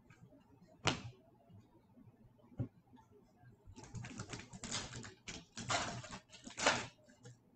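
A sharp click about a second in, then a run of rustling crackles from about four to seven seconds in: a foil trading-card pack being handled and torn open.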